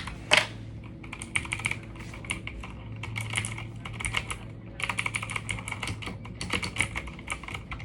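Typing in quick bursts on the clicky blue switches of a Motospeed CK61 60% mechanical keyboard, each keystroke a sharp click.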